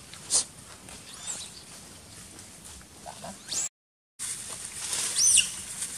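Short, high-pitched squeaky animal calls that rise and fall, the loudest a few about five seconds in, with a sharp click near the start. The sound cuts out completely for about half a second near the middle.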